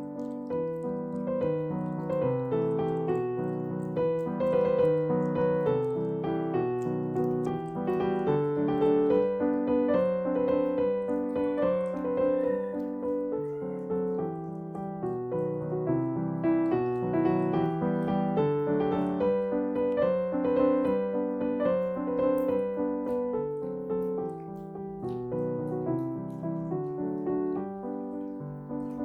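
Background piano music, slow notes and chords played continuously.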